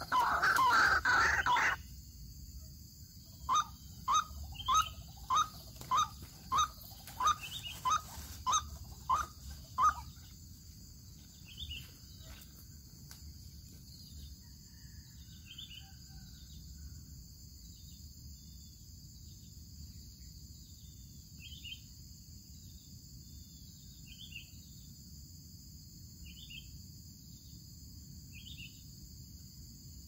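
White-breasted waterhen (ruak-ruak) calling: a run of about a dozen loud, harsh, evenly spaced notes, nearly two a second, from about three and a half to ten seconds in. After that come faint high chirps every couple of seconds over a steady high insect drone. A loud harsh sound cuts off about two seconds in.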